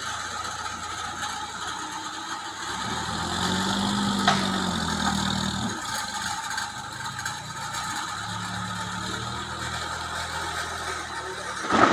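Backhoe loader's diesel engine running, revving up twice under load as its front bucket pushes into a pile of oil palm fruit bunches, the first time about three seconds in and again near eight seconds. A single sharp click comes during the first rev.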